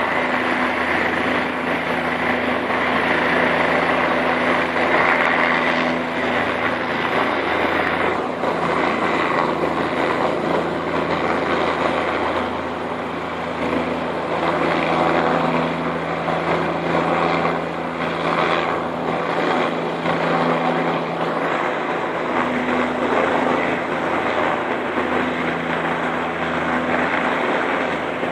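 Helicopter flying close by, its rotor and engine running steadily throughout.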